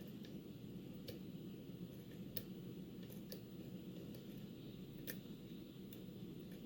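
Faint, irregular ticks and clicks of a lock pick working the pins of a Yale pin-tumbler challenge lock held under tension.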